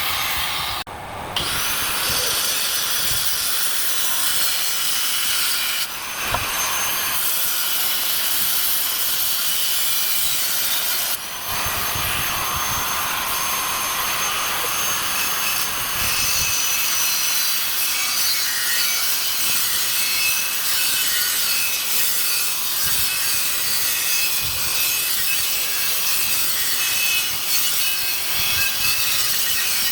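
Angle grinder cutting through the steel wall of an old propane tank: a steady, high-pitched grinding that dips briefly and picks up again about a second, six seconds and eleven seconds in.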